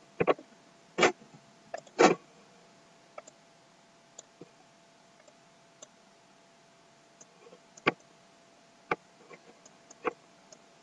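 Scattered clicks of a computer mouse: a quick cluster of four or five in the first couple of seconds, then three more spaced out near the end, over a faint steady hum.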